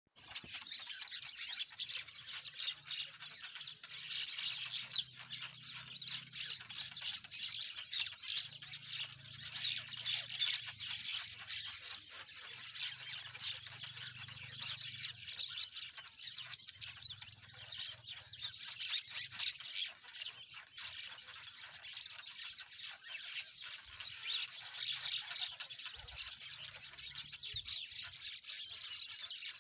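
Dense chorus of many birds chirping and calling together, a continuous mass of overlapping high-pitched chirps.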